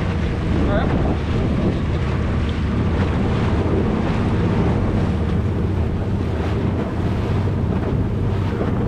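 A small boat's motor running steadily under way, with wind buffeting the microphone and water rushing past the hull.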